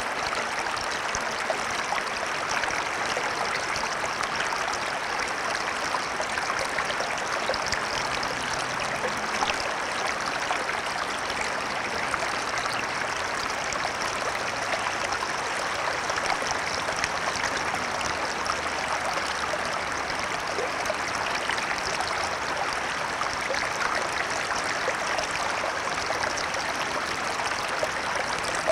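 Water of a small, shallow stream flowing over stones, a steady babble with small splashes and trickles.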